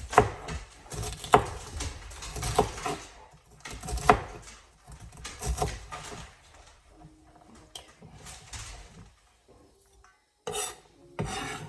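Kitchen knife knocking and scraping on a wooden cutting board while working through diced celery: a sharp knock roughly every second and a half with scraping between, thinning out later and ending with two short scrapes.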